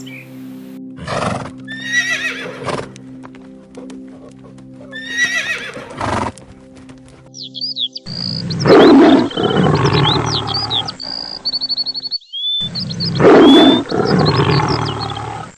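Horse neighing and whinnying several times: short calls over background music in the first half, then two long, loud whinnies with birds chirping behind them.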